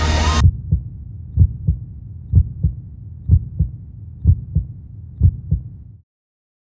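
Heartbeat sound effect: six double low thumps, lub-dub, about one pair a second, starting just after the music cuts off abruptly. The beats stop suddenly near the end.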